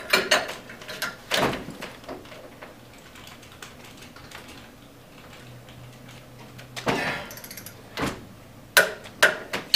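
Metal hand tools knocking and clattering against a bolted steel pipe-flange test rig as its bolts are worked with wrenches: a few separate knocks near the start, a quiet stretch, then a cluster of knocks near the end.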